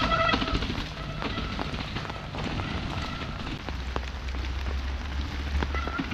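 Light rain falling, a steady patter with many small drop ticks. A low rumble swells for about two seconds in the second half.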